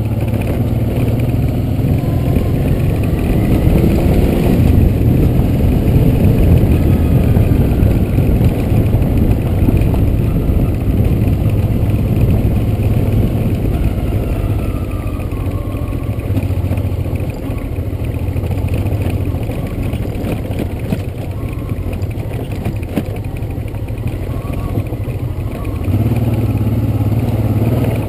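Honda Transalp's V-twin engine running under way on a rough, stony dirt track, a steady low rumble mixed with rattle and clatter from the rough ground. It gets a little louder near the end.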